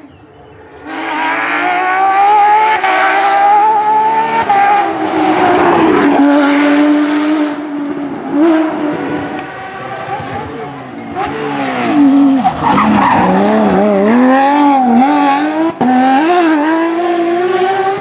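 Porsche 911 GT3 rally cars' flat-six engines at speed, two passes in a row, the engine note climbing, dropping and wavering with gear changes and throttle lifts. A rush of tyre noise comes about six seconds in.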